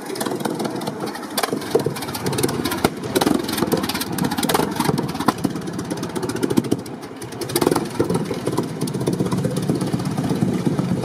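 The Fiat S76's enormous four-cylinder engine, around 30 litres, running slowly, its exhaust firing in loud, uneven sharp cracks.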